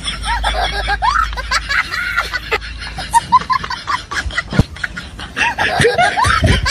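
Snickering, chuckling laughter, with a few sharp knocks, the loudest about four and a half seconds in.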